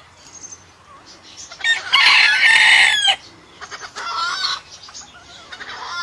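A rooster crowing once, a loud call lasting over a second, followed by two shorter, quieter calls.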